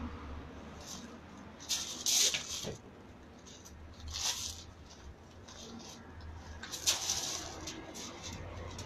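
Feet shuffling and crunching on loose gravel in short bursts, about three times, as two people spar, over a low rumble.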